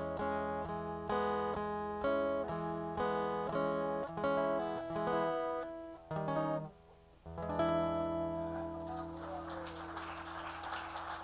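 Acoustic guitar strumming the closing chords of a song. After a short break about seven seconds in, a final chord is left ringing.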